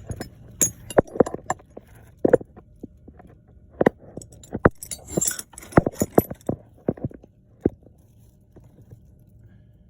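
Irregular light clicks and metallic clinks of small hard parts being handled, a dozen or so sharp taps that stop about eight seconds in.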